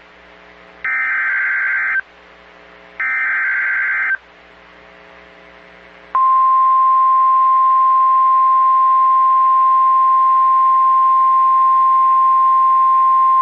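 NOAA Weather Radio alert signalling. The last two of three harsh, buzzy SAME digital header data blasts play, each about a second long and about a second apart. About six seconds in, the steady single-pitch 1050 Hz warning alarm tone starts and holds. Together they announce a new severe thunderstorm warning about to be read.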